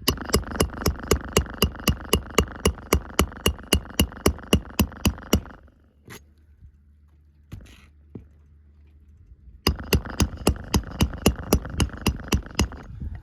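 Hand hammer driving roofing nails into asphalt shingles: a quick, even run of ringing metal blows, about four or five a second for some five seconds, then a pause with a couple of lone taps, then a second run of about fifteen blows.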